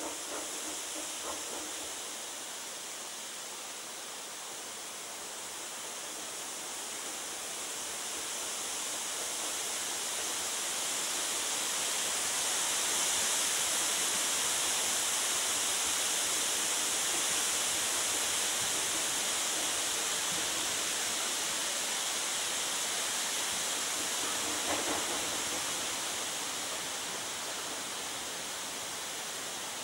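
Steady hiss of steam escaping from a narrow-gauge steam locomotive, swelling to its loudest about halfway through and easing off again.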